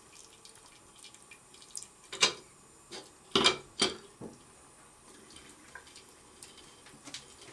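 A tap running into a sink, a faint steady trickle, broken by three sudden loud splashes between about two and four seconds in as a cat swats at the stream.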